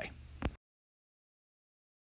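A man's voice ending a short word in the first half second, then dead digital silence.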